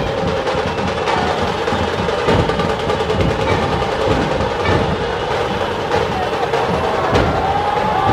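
Dhol-tasha drumming: big dhol barrel drums beating under fast, rolling tasha snare strokes, loud and continuous, with a few held tones over the drums.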